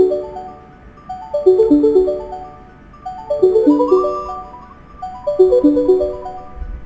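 An Apple iPhone ringtone from the iOS 17 set playing. It is a short melodic phrase, a quick falling run of notes that ends on a higher note, repeating about every two seconds.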